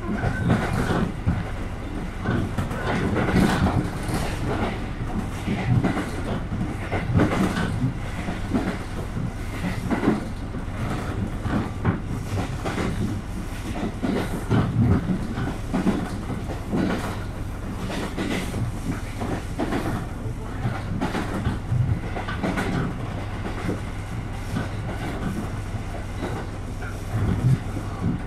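Inside a JR Kyushu KiHa 200 series diesel railcar running along the line: a steady low drone of the running train with irregular clickety-clack knocks of the wheels over rail joints.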